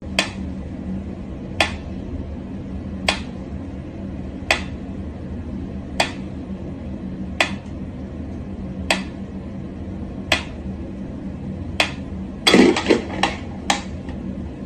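Mechanical pendulum metronome ticking slowly and evenly, about one tick every one and a half seconds. Near the end a louder quick clatter of clacks breaks in, followed by two more ticks.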